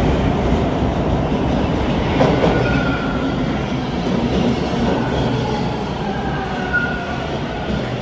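TTC Bombardier T1 subway train running along the platform: a loud rumble of wheels on rail that eases slowly. Thin high tones set in about two and a half seconds in.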